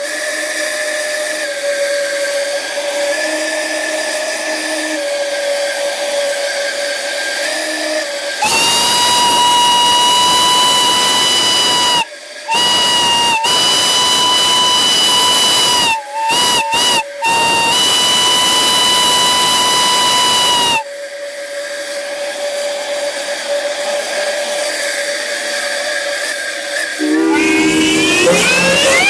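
Steam whistles blowing on live steam with a strong hiss of escaping steam. One lower whistle holds a steady note throughout. About eight seconds in, a louder, higher-pitched whistle joins for about twelve seconds, cut into a few short toots near its end. Near the end a different sound with sliding pitches takes over.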